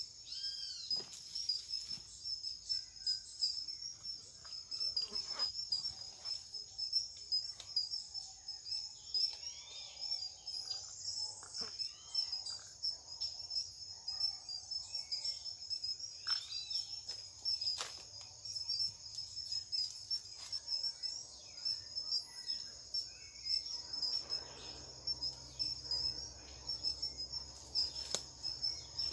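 Steady high-pitched insect trill, a continuous pulsing chorus, with short bird chirps now and then and a few sharp clicks and a brief rustle of handled gear.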